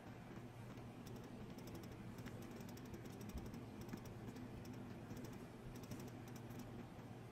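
Faint, quick clusters of light clicks and taps from hands working a metal ring around a mold disc, over a steady low hum.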